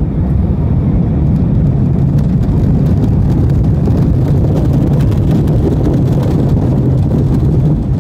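Loud, steady rumble heard from inside a jet airliner's cabin during its landing, with faint light rattling over it.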